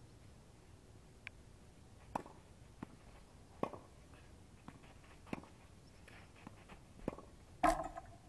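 Tennis rally on a clay court: sharp pocks of the ball off the rackets about every one and a half to two seconds, with fainter ticks of bounces between them. The loudest hit comes near the end.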